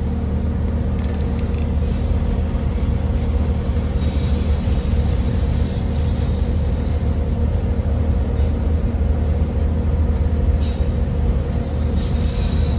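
A steady, loud machine hum with a low drone and a faint high whine over it, continuous and unchanging.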